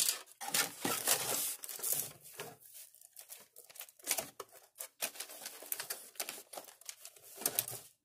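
Paper and plastic packaging crinkling and rustling as hands rummage through a cardboard model-kit box, with small clicks and knocks of plastic parts and parts trees being moved.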